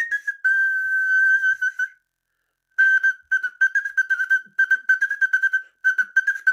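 Shrill whistle tone blown through a hole in a piece of food used as an improvised whistle. One long held note, a short break, then a quick run of short repeated notes on nearly the same pitch.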